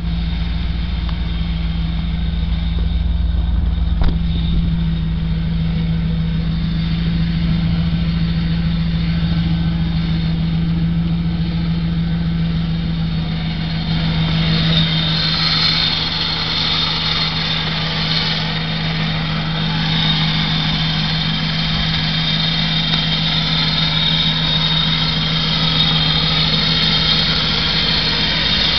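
1985 Pontiac Firebird Trans Am's 305 small-block Chevrolet V8 (5.0 L, throttle-body injected) idling steadily. A higher hiss joins in about halfway through.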